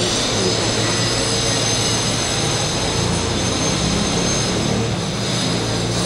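Electric power drill running continuously with a high-pitched whine over a steady rushing noise.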